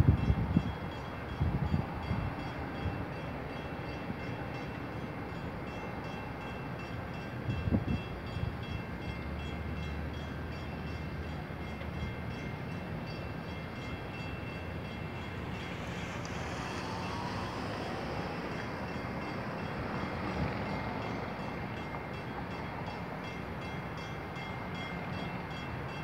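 Steady, fairly quiet traffic ambience of cars idling at a stop, with faint steady high-pitched tones running under it. There are a couple of brief louder bumps in the first eight seconds.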